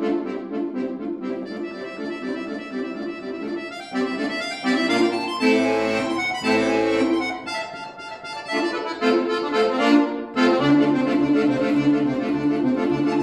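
Scandalli piano accordion played solo in a fast passage of quick runs, with louder held chords partway through. The left-hand bass drops out for most of the passage and comes back in strongly about ten seconds in.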